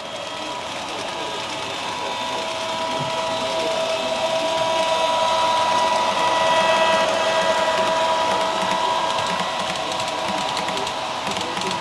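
Motor of an HO-scale model passenger train whining steadily. It grows louder to a peak a little past halfway, then fades as the train passes.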